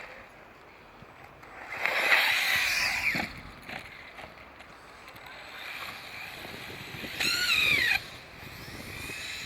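RC car's motor whining in two short bursts as it accelerates and lets off, the first about two seconds in and the second near the end, its pitch rising and falling.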